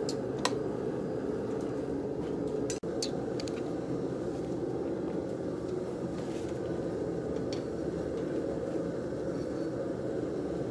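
Steady roar of a burner heating 9-gauge steel wire, with a few faint clicks and knocks from the work area.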